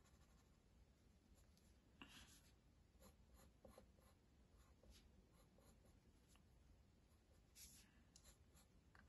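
Faint pencil scratching on paper: scattered short strokes shading in the iris of a drawn eye.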